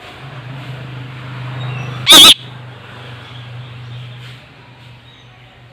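Pet parakeet giving one short, very loud, wavering screech about two seconds in. A steady low hum runs underneath and stops about four and a half seconds in.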